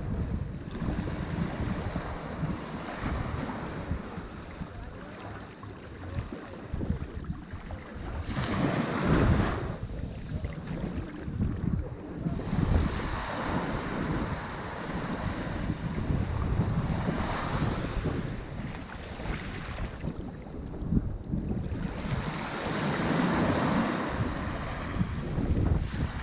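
Ocean surf breaking on a shore, a continuous wash that swells into a louder surge every few seconds, with wind rumbling on the microphone.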